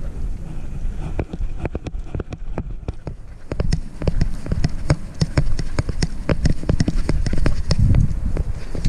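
A dog's claws clicking and paws patting quickly on a concrete path and steps, picked up by a camera strapped to the dog, with low rubbing and bumping from the mount. The steps thin out a couple of seconds in, then come faster and denser.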